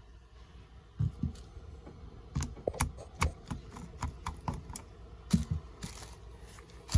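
Irregular light clicks and taps of small hardware being handled: the loose housing screws of a cordless impact wrench clicking against each other and the work surface as they are set out and counted.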